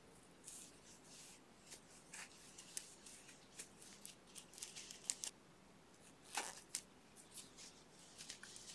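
Faint rustling of yarn and light clicks of a crochet hook as a stitch is worked by hand, with a slightly louder rustle about six and a half seconds in.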